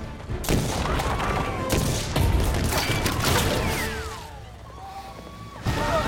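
Musket gunfire and crashing in a chase, with music underneath. It is loudest from about half a second in to about four seconds, dies down, then another loud hit comes near the end.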